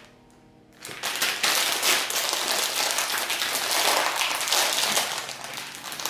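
A funny-frisch Chipsfrisch crisp packet being pulled open, its plastic foil crinkling and crackling in a dense, unbroken run that starts about a second in.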